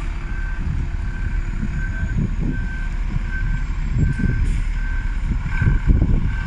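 Reversing alarm on a double-decker bus beeping steadily, about one beep every 0.7 seconds, over the low running of the bus's engine; the beeps stop near the end as the engine grows louder.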